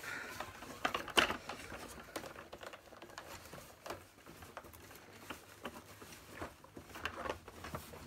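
Cloth wiping and rubbing the plastic casing of a bagged vacuum cleaner during cleaning: irregular rustles and scrapes, with a few sharp clicks and knocks of handling, the loudest about a second in.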